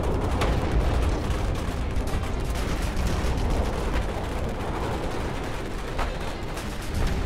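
Battle sounds: a continuous low rumble of distant gunfire and artillery, with a few sharp single shots standing out, one about six seconds in.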